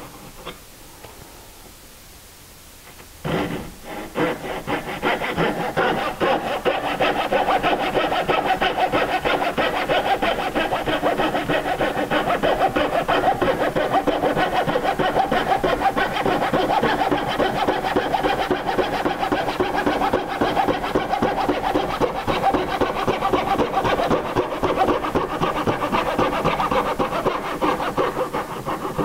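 Hand coping saw cutting a cope into the end of a wooden baseboard, with rapid, steady back-and-forth strokes of the thin blade through the wood. The sawing starts about three seconds in, after a short quiet pause, and keeps an even pace.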